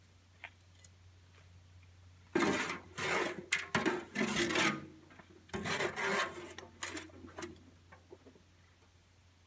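Rough scraping and rubbing as material is worked at a wheelbarrow, in several uneven bursts over about five seconds starting a couple of seconds in.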